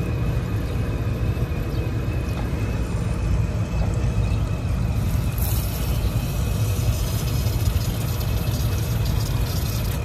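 Steady machine hum and low rumble with a thin, constant high whine, typical of rooftop air-conditioning equipment running. About five seconds in, a hiss of water from a garden hose flushing a PVC condensate drain line joins it.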